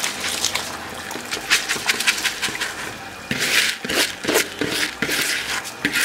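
Soaked rice poured into boiling water in a wok: a rapid crackle and patter of grains hitting the liquid over the boil's bubbling. It grows louder and harsher about three seconds in.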